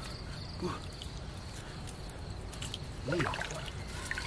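Water trickling and dripping as a wet wire-mesh fish trap full of fish is handled in shallow muddy water, with small clicks and splashes. A short voice-like sound about three seconds in.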